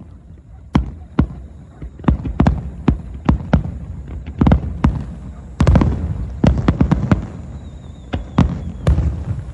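Aerial firework shells bursting in a rapid, irregular barrage: a string of sharp booms, each trailing off in a rumbling echo, densest about halfway through.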